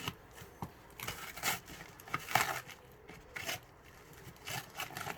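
Packaging rustling and crinkling in irregular bursts, with a few light knocks, as a cardboard box is unpacked by hand.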